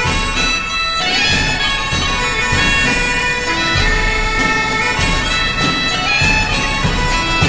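Background music: a reedy, bagpipe-like wind melody over sustained held tones and a steady low beat.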